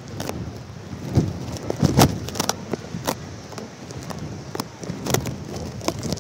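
Wind buffeting a phone taped to a kite. Irregular sharp knocks and rattles run over a steady wind rush on the microphone, the loudest about two seconds in.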